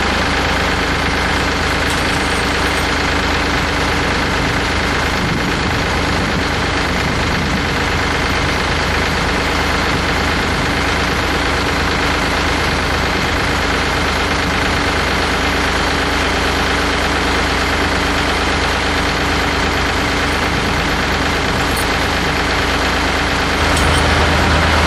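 Farm tractor engine running steadily at a low idle, a little louder near the end.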